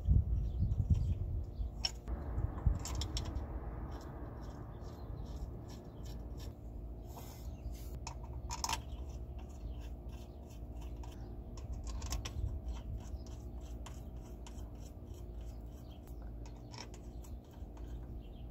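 Bolts being threaded in by hand on the inner flange of a new CV axle on a Chevy Silverado: small metallic scrapes and clicks, with a few louder knocks in the first three seconds, over a low steady hum.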